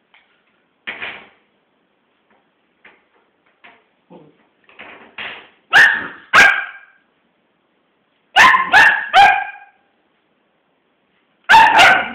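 Small dog barking in play at a stone, in sharp barks: two about six seconds in, three in quick succession around eight and a half seconds, and another quick run near the end. Softer yips and whimpers come before the first loud barks.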